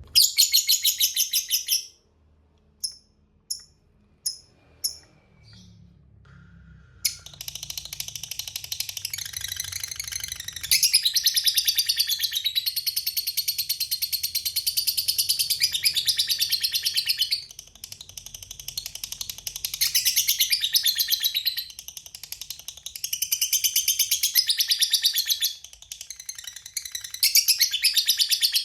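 Lovebird 'ngekek' song: a loud, high-pitched, rapid chattering trill. A short burst opens, a few single chirps follow, then long unbroken runs of several seconds each with brief pauses between them.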